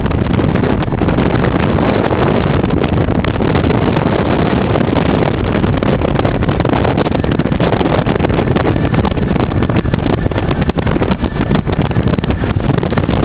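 Hurricane 2400 deck boat running underway: a steady rush of engine and water noise, with heavy wind buffeting on the microphone.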